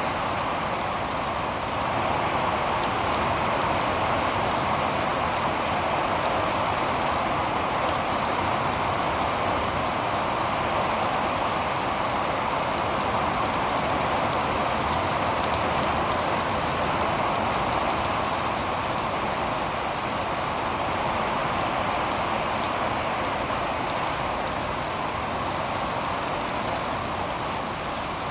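Heavy rain pouring onto a wet asphalt parking lot, drops splashing on standing water in a steady, dense hiss.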